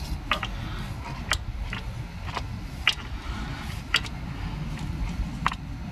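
Light metal clicks and taps, about seven scattered irregularly, as hands work loose a small bolt of a Honda ST1300's clutch slave cylinder, over a low steady rumble.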